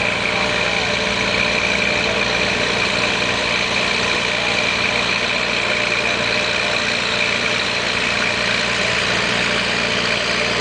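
Minneapolis-Moline tractor engine idling steadily, with other tractor engines running behind it.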